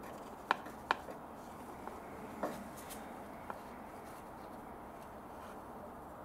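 Light handling noise from a car's aircon pipe fitting being wiped with a cloth and handled in gloved hands: three sharp clicks in the first two and a half seconds and a smaller tick later, over a steady low hiss.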